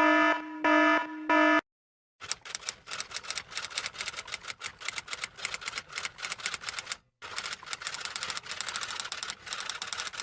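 Rapid typing clatter: a long run of fast key clicks that breaks off briefly about seven seconds in and then resumes. Before it, in the first second and a half, a few short pitched tones sound, left over from the previous effect.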